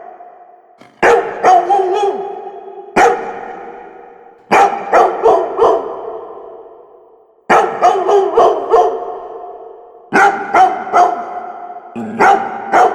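Labrador barking in short bursts of about three or four quick barks, a new burst every two to three seconds, each trailing off in a long echoing tail.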